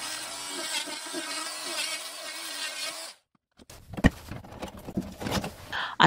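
Oscillating multi-tool cutting into drywall: a steady buzz whose pitch wavers slightly, cutting off abruptly about three seconds in. After a short silence come a few faint clicks and a sharp knock.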